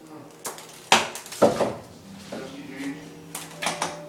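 A kitten batting a small plastic toy ball across a hard surface: a few light, irregular knocks and clatters, the loudest about a second in and again half a second later, with a quicker cluster near the end.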